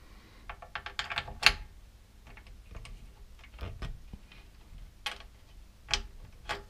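Metal clicks and knocks from a 1970s British Rail platform ticket machine being handled at its side: a quick rattling run of clicks about a second in, then a few single sharp clicks.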